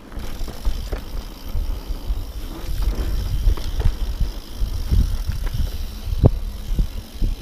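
Mountain bike riding fast over a rocky dirt singletrack: a steady low rumble of wind and tyres on dirt, with the bike clattering and knocking over rocks, a sharper knock about six seconds in.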